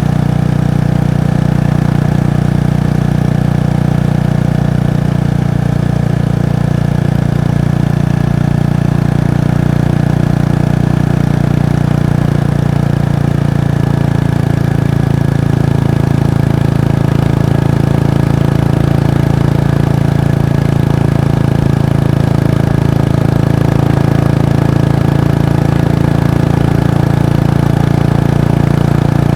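Kawasaki Estrella's 250 cc air-cooled single-cylinder engine running steadily through its exhaust at an even pitch, with a slight shift in tone about halfway through.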